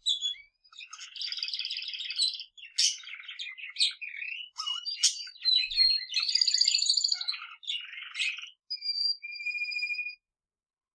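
Pet budgerigar and male canary singing together: fast rolled trills and chattering warbles in runs with short breaks, stopping abruptly near the end.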